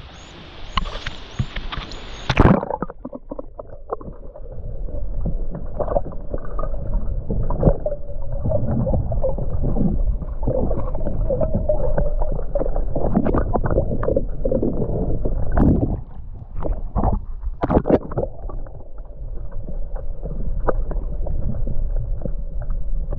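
Sea water splashing at the surface, then about two and a half seconds in the sound turns muffled as the microphone goes under: a low underwater rumble of moving water with repeated knocks and gurgles.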